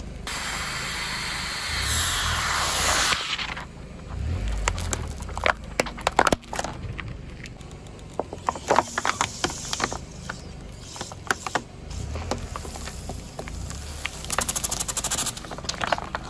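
Car tyre crushing an aerosol spray can, with a loud hiss of escaping gas for about three seconds. Then scattered crackles and pops of plastic as the tyre rolls onto a full plastic soda bottle, with a dense run of crackling near the end as the bottle splits.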